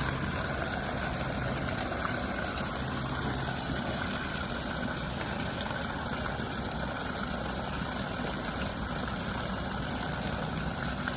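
Fire-fighting pump set running steadily, a constant mechanical drone under pressure testing of the hydrant line.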